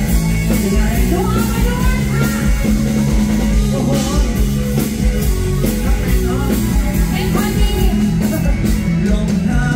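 Live Thai luk thung band music played loud through a concert PA, with drum kit and bass keeping a steady beat under a bending melody line.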